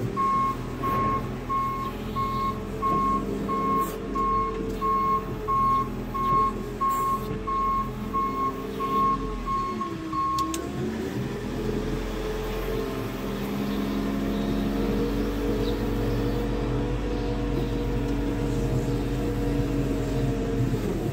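Loader's diesel engine working with a full bucket of manure while its reversing beeper sounds about twice a second. About ten seconds in the beeping stops and the engine note dips, then picks up again and runs on steadily.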